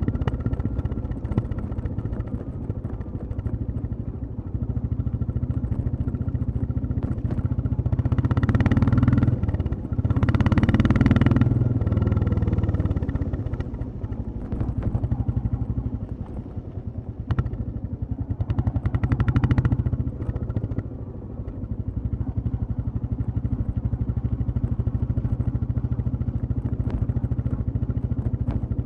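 Royal Enfield Classic 350 single-cylinder motorcycle engine running while riding. Its exhaust gets louder a few times, about a third of the way in, again just after, and once past the middle, and eases back between.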